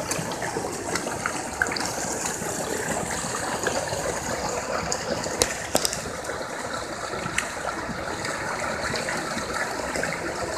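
A dense crowd of tilapia thrashing at the pond surface, a steady churning splash of water with a few sharp clicks a little past halfway.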